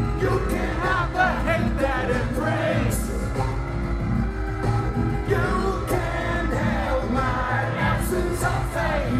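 Live industrial rock band: a male lead vocal sung into a handheld microphone over a steady bass and drum beat.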